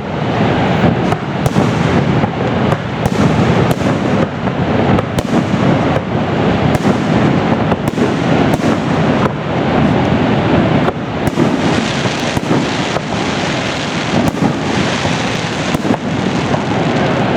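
Fireworks display going off without a break: overlapping booms fill the air, with many sharp cracks and pops among them.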